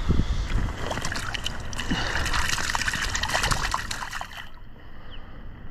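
Shallow water splashing and trickling as a small striped bass kicks while held in it at the water's edge, with many short splashes. The splashing dies down about four and a half seconds in.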